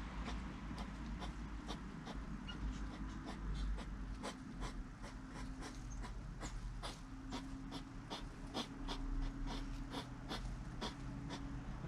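Hedgehogs crunching sunflower seeds: a quick, irregular run of sharp little cracks, a few each second.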